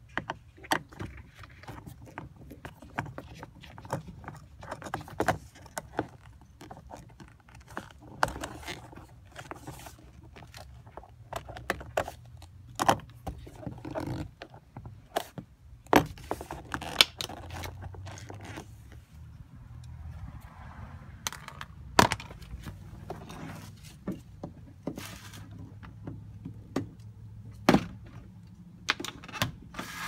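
Screwdriver turning and scraping in a car door trim panel screw, with irregular metal-on-plastic clicks, taps and scrapes and a few sharper single clicks.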